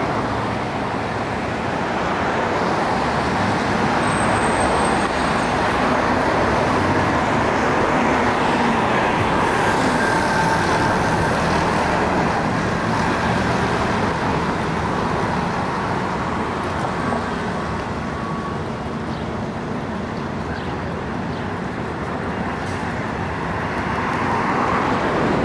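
Steady city street traffic, with heavy vehicles running past: a tanker truck and an articulated city bus among cars.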